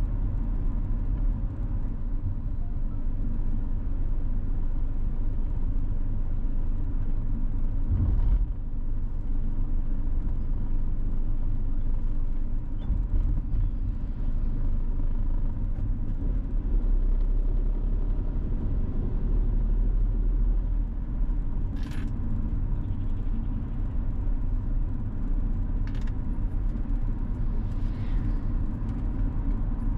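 Steady low rumble of a vehicle driving, mostly engine and tyre noise. A thump comes about eight seconds in, and a few short sharp clicks come in the last third.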